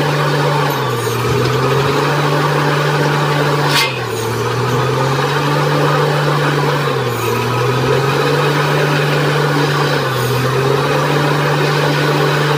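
Borewell drilling rig running at a steady drone, its pitch dipping briefly and recovering about every three seconds. One sharp noise cuts through about four seconds in.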